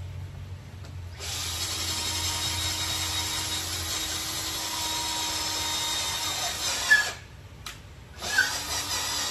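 Cordless drill boring a hole through a wooden board, its motor running steadily for about six seconds and then stopping with a click. Near the end the drill runs again briefly, rising in pitch as it spins up.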